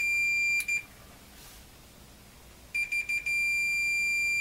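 Multimeter continuity beeper sounding as the probes touch the ends of a fuse: a half-second high beep and a short blip, then a few stuttering beeps that settle into a steady beep. The beep shows the fuse has continuity, so the fuse is good.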